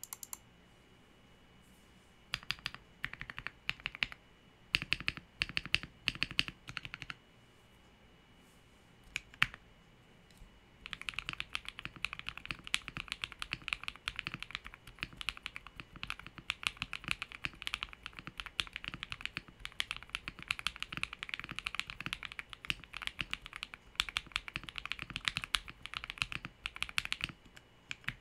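Typing on an MW65 mechanical keyboard with Halu Halo switches lubed with Krytox 205g0, a polycarbonate plate, a PCB modded with anti-static PE foam and two layers of masking tape, and Akko low-profile ASA keycaps. A few short runs of key presses at first, then fast, continuous typing from about eleven seconds in.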